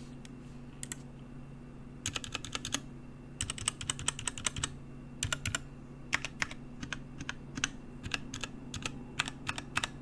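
Typing on a Qisan Magicforce Smart 49-key 40% mechanical keyboard with Gateron Brown tactile switches and ABS keycaps: irregular keystrokes in short runs with brief pauses, starting about a second in, over a steady low hum.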